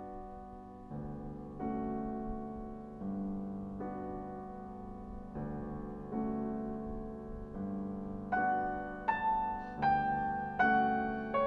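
Slow piano music: sustained chords that change every second or so, with a higher melody of single struck notes coming in about eight seconds in.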